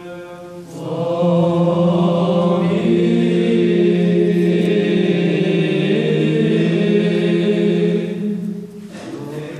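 Orthodox choir singing Byzantine chant responses over an ison, a steady held drone note. About a second in, the full choir comes in loudly with the melody. Near the end it falls away again, leaving the drone.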